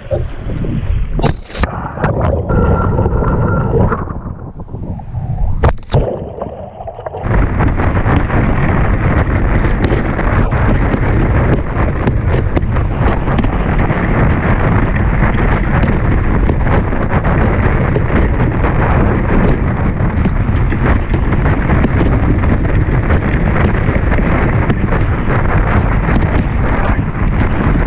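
Kiteboard speeding over choppy water: wind buffeting the board-mounted action camera's microphone, water rushing under the board and spray hitting, with many small slaps from the chop. For the first several seconds the sound is uneven and gurgling, with a few sharp splashes, then at about seven seconds it settles into a steady, loud rush.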